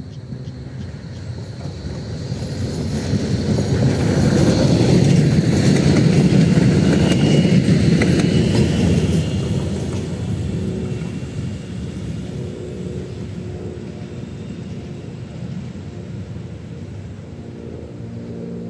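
A tram passing by: a rumble of wheels on rails that builds over about four seconds, peaks, then slowly fades away, with faint high squealing tones near its loudest point.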